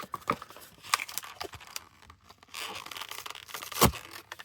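Blister-carded diecast toy car package being carefully pried and torn open: crinkling plastic and tearing card, with a sharp click near the end.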